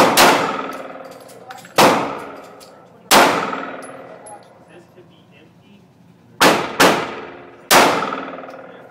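About seven 9mm pistol shots fired at an uneven pace, two pairs close together, each crack followed by a long ringing echo off the walls of an indoor range.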